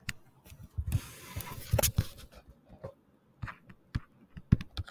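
A stylus tapping and scratching as it writes by hand: scattered light clicks, with a short scratchy rustle about a second in.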